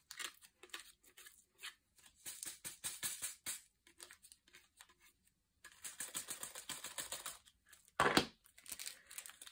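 Small resin diamond-painting drills rattling and clicking against a plastic drill tray as they are shaken and tipped out. The patter comes in quick runs, with a break of about a second in the middle and one louder clatter near the end.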